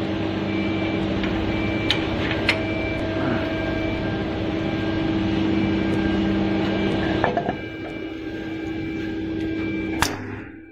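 Steady machine hum from a running CNC wood lathe, with several fixed tones and a few light clicks. Part of the noise drops away about seven seconds in, and a single sharp knock comes near the end.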